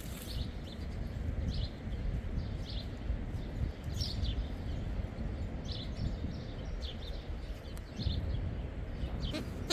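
Small birds chirping in short, separate calls about once a second over a steady low rumble.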